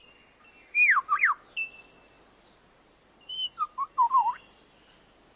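Superb lyrebird singing clear whistled notes that slide downward, in two short phrases: one about a second in, the other around three to four seconds in.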